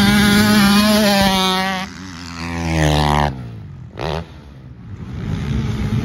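Honda CR two-stroke motocross bike engine running at high revs. About two seconds in it revs up with a steeply rising pitch that cuts off sharply. A short throttle blip follows, then the engine builds again near the end.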